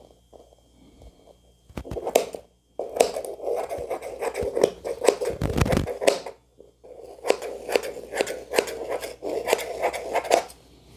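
Scissors cutting through net fabric laid over a taffeta skirt: many quick snips in two runs with a short pause between them, and a dull thump of handling in the middle.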